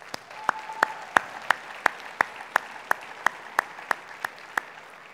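Audience applauding, with one person's loud, evenly spaced claps, about three a second, close to the microphone. The close claps stop a little before the applause dies away.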